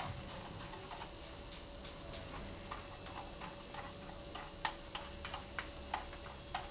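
A computer mouse being brushed and handled: light, irregular plastic clicks and ticks from a small brush working around its grooves, coming faster and louder in the second half. A faint steady hum lies underneath.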